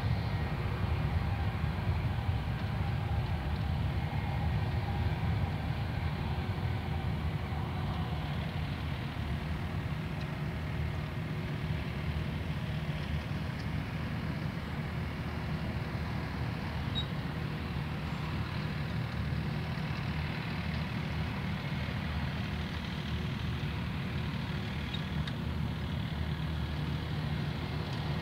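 Airbus A320's twin IAE V2500 turbofans at taxi idle as the airliner taxis onto the runway to line up: a steady low rumble with a thin, even whine above it.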